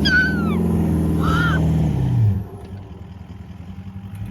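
Car engine revving steadily, then its revs fall away about two seconds in. A child cries out twice over it near the start.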